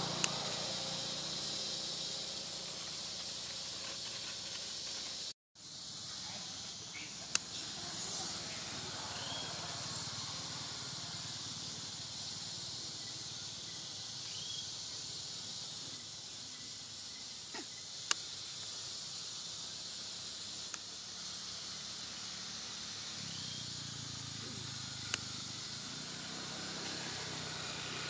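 Steady high-pitched hiss of forest background ambience, with a few faint short chirps and several light clicks. The sound drops out completely for a moment about five seconds in.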